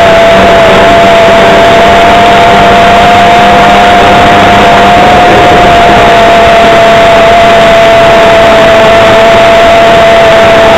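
O.S. .55AX two-stroke glow engine of a model airplane running at steady throttle in flight. It is a loud, high-pitched buzzing whine that holds nearly one pitch over a constant rushing hiss.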